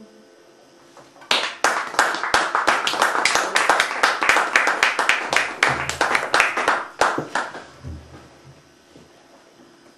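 A small audience applauding: many separate hand claps start about a second in, keep up for about six seconds, then die away.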